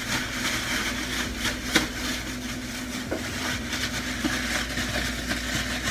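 A steady mechanical hum with a faint even tone, under light clicks and rustles of raw chicken wings being coated in breading; one sharper click about two seconds in.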